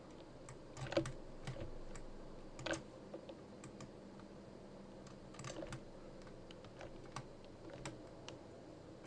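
Irregular clicks from a computer keyboard and mouse in use, a few sharp clicks every second or two, over a faint steady hum.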